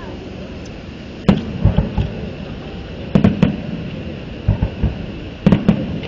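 Aerial firework shells bursting: a sharp crack about a second in, a quick run of three cracks around three seconds and another near the end, with duller booms in between.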